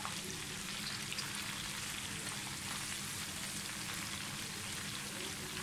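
Flour-coated chicken pieces deep-frying in hot oil in a pan: a steady sizzle of fine bubbles, the chicken nearly fully fried.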